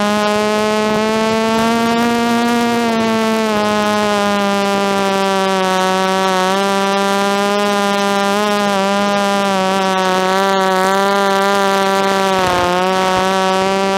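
DJI F330 quadcopter's motors and propellers humming steadily, heard from the onboard camera. The pitch drifts slightly up and down with throttle and dips briefly near the end.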